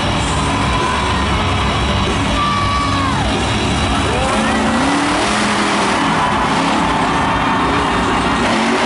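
Monster truck's supercharged engine revving, rising and falling in pitch, over loud arena music and crowd noise.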